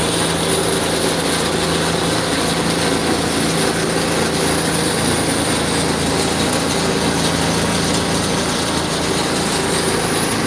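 Water tanker truck's engine running steadily, with the hiss of water spraying from the hose it feeds.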